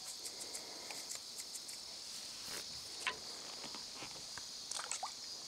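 Steady high-pitched chorus of singing insects, with faint scattered clicks and a few soft taps.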